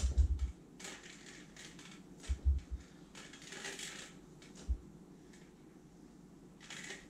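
A spatula scraping thick blended chicken and mayonnaise out of a plastic food-processor bowl into a sieve, in several short scraping strokes, with a few dull knocks of the bowl and utensils.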